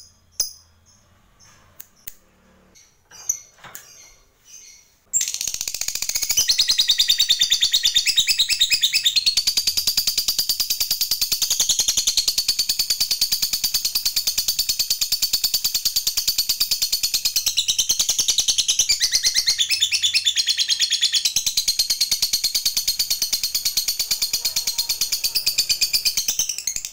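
Lovebird giving a few short calls, then about five seconds in breaking into a long, unbroken ngekek: a very rapid, high, rattling chatter that keeps going without a pause. This sustained trill is the long ngekek that lovebird fanciers prize.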